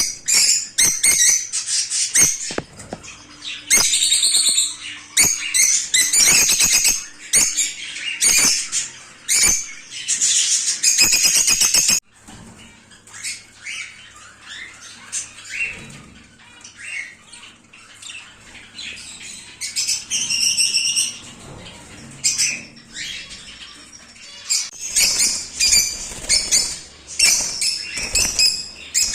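Many small pet parrots chirping and squawking at once, with wing flapping and sharp clicks among them. Partway through, the sound drops suddenly to quieter, sparser calls.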